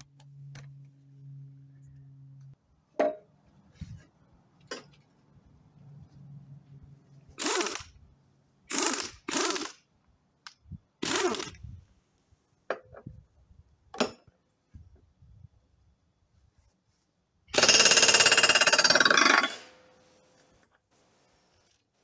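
Pneumatic impact wrench working a riding-mower deck's blade nut to take the blade off: a few short blips, then one burst of rapid hammering of about two seconds.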